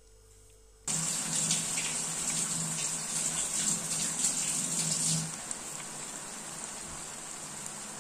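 Batter-coated cauliflower florets deep-frying in hot oil in a kadai: a loud, steady sizzle that starts suddenly about a second in and eases a little after about five seconds.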